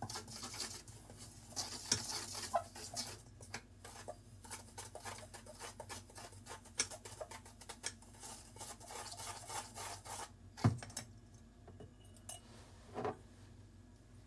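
A utensil stirring rice flour and sugar for dango dough in a bowl, with quick scraping and clinking against the bowl. Near the end it slows to a few separate taps, with a sharp knock about ten and a half seconds in.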